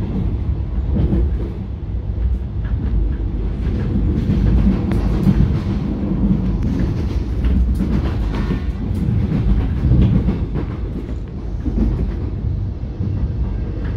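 Inside an X'Trapolis 100 electric suburban train running on the line: a steady low rumble of wheels on rail with scattered clicks and rattles, the level rising and falling.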